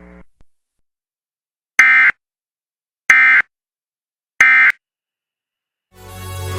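Emergency Alert System end-of-message data tones: three short, harsh digital squawks about a second and a half apart, which mark the end of the alert. Music fades in near the end.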